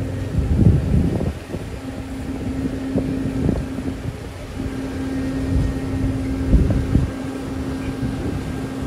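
Low, steady drone of ship engines with a held hum, and wind buffeting the microphone in several gusts.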